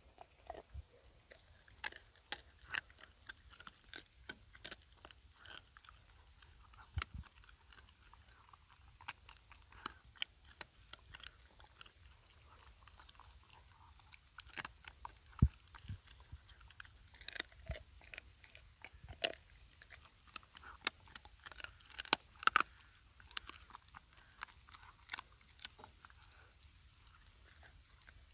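A dog chewing raw bones: wet, irregular gnawing with sharp crunches and cracks as its teeth work through the bone, the loudest crack about halfway through.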